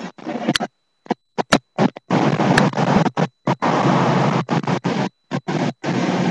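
Loud rushing noise on a handheld camera's microphone, broken up again and again by short moments where the sound cuts out completely.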